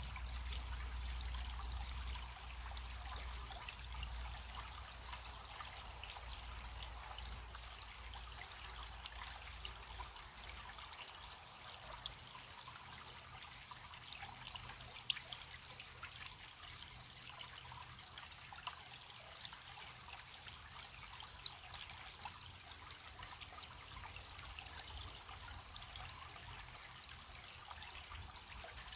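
Small stream trickling steadily over stones, with crickets chirping in an even, high pulse underneath. A low rumble fades out about a third of the way in.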